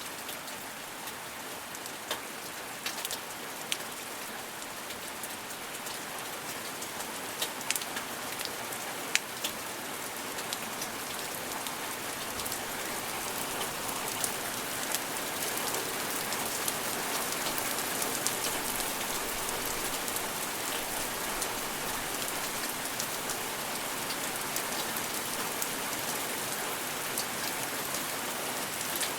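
Steady rain falling and pattering on a surface, with scattered individual drop taps standing out, gradually getting a little heavier.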